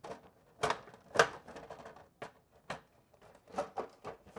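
NordicTrack S22i's plastic side cover being worked back into place by hand: a series of short, sharp plastic clicks and knocks, the loudest a little over a second in, as the cover halves are pressed together at their clips.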